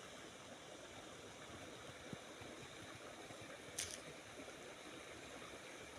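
Faint steady rush of flowing water, with one sharp click about two-thirds of the way through.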